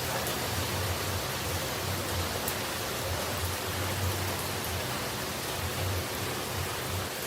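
Steady falling-water noise, an even hiss across the whole range with a low rumble that comes and goes underneath.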